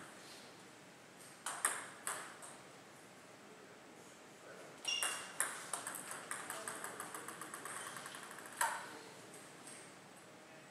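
Table tennis ball clicking sharply off rackets and the table: three clicks about a second and a half in, then a rally about halfway through. The rally has two loud hits followed by a run of quick, light ticks, and one more sharp hit near the end.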